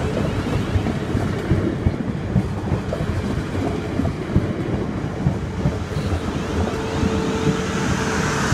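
South Western Railway Class 450 Desiro electric multiple unit passing at close range, its wheels clicking irregularly over the rails and crossing. A steady tone joins in near the end.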